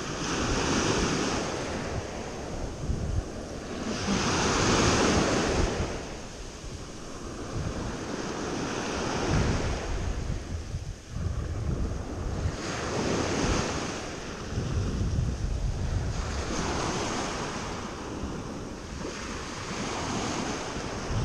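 Small waves breaking and washing up a sandy shore, the surf swelling and fading every few seconds, with wind buffeting the microphone.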